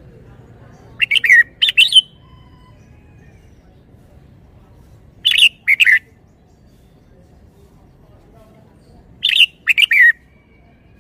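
Red-whiskered bulbul singing three short, loud phrases about four seconds apart, each a quick run of two or three falling whistled notes.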